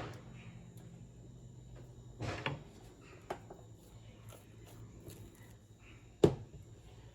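A few light knocks and clicks of kitchen utensils against a dish, the loudest about six seconds in, over a steady low hum.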